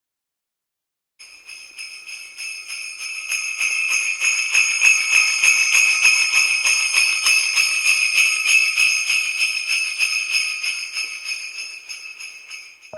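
Jingle bells shaken continuously in a fast, even jingle, starting about a second in, swelling, then fading away near the end.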